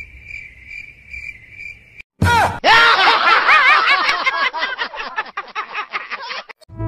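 Chirping-crickets sound effect, a steady high pulsing trill, in a break in the music. About two seconds in it is cut by a sudden short burst, then a loud, dense clamour of many high, warbling voice-like calls that lasts about four seconds and stops just before the end.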